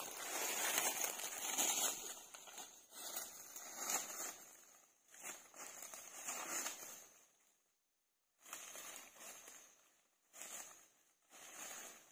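Footsteps crunching through dry fallen leaves on the forest floor, in uneven steps. They grow fainter, stop for a moment about eight seconds in, then go on more lightly.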